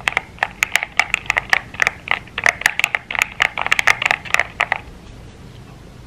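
Zuoya GMK87 tenkeyless mechanical keyboard being typed on: a quick, dense run of keystroke clacks that stops about five seconds in.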